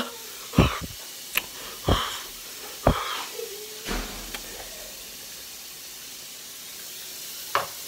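Several short, sharp hissing breaths and gasps through an open mouth, from someone whose mouth is burning from very spicy noodles. They come in the first four seconds, with a click among them, and one more short breath near the end.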